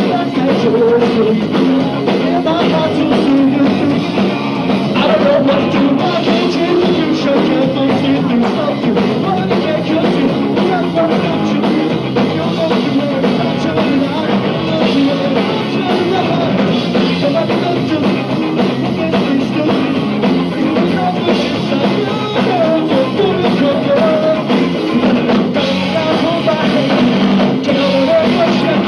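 Punk rock band playing live: electric guitars and a drum kit going full tilt, with singing.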